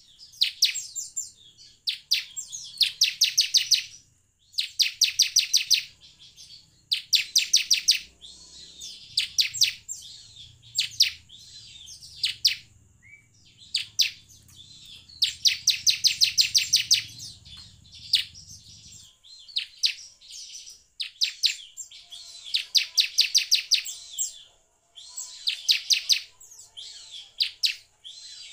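Bar-winged prinia (ciblek) singing: loud one-second phrases of fast, evenly repeated high notes, given again and again with short pauses between them.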